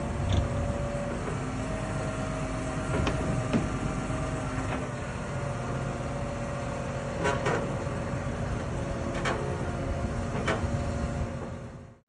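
Tractor's diesel engine idling steadily, with a handful of sharp metallic knocks and clanks; the sound fades out near the end.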